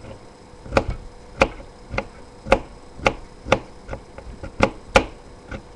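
Kitchen knife chopping food on a cutting board, a sharp knock about twice a second after a short pause at the start, with lighter taps in between.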